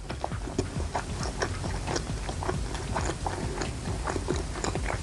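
A person chewing kwek-kwek, battered deep-fried quail eggs, close to the microphone: a run of small, irregular mouth clicks and smacks.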